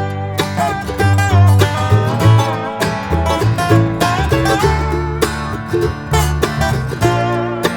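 Instrumental background music with plucked strings over a bass line.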